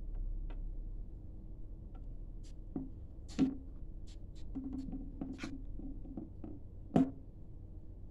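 Smartphone handled over a wooden tabletop: scattered light taps and clicks, then one louder knock about seven seconds in as the phone is set down flat on the table, over a steady low hum.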